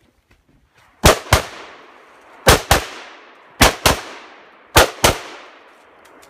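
Rifle shots fired in four quick pairs, eight shots in all, the pairs about a second apart, each shot trailing off in echo.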